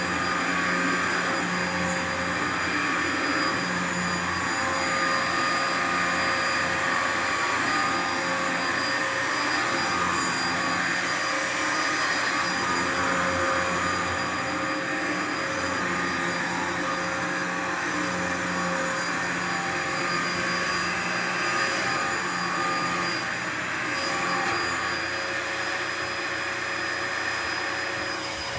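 Dyson upright vacuum cleaner running steadily, its motor whine held at one even pitch over the rush of air, easing slightly in loudness near the end.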